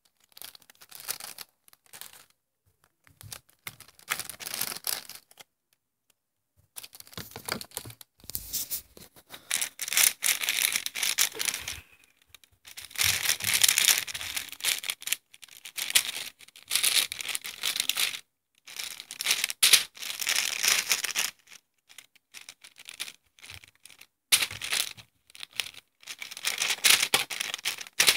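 Rustling and scraping as plastic Lego pieces are slid apart and handled over a plastic-covered surface. It comes in bursts of a second or two, with short silent gaps between them.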